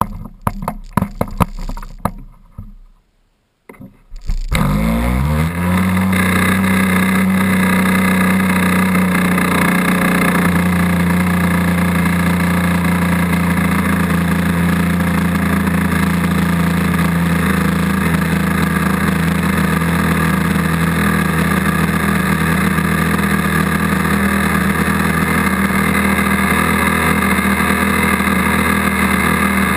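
Model airplane glow engine on a 40-size trainer, its glow plug lit by a handheld igniter, starting about four seconds in after some knocks and clatter: its pitch rises as it catches and then it runs at a steady speed.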